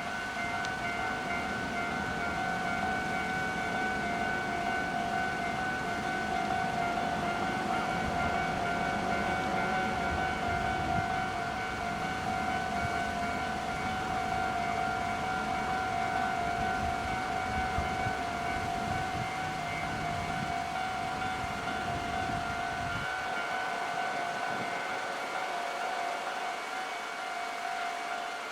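Japanese level-crossing warning alarm ringing steadily with a constant tone throughout, while a passing train rumbles over the crossing. The train noise cuts off suddenly about 23 seconds in, and the alarm keeps ringing.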